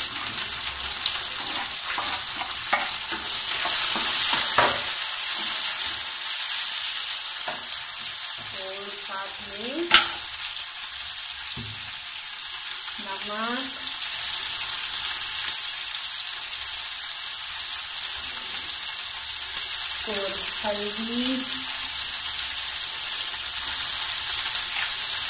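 Chopped onion, tomato and green chilli sizzling in hot mustard oil in a non-stick wok, stirred with a wooden spatula. A sharp knock sounds about ten seconds in.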